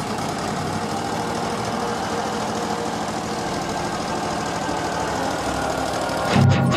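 An engine running steadily. Loud rock music with electric guitar comes in near the end.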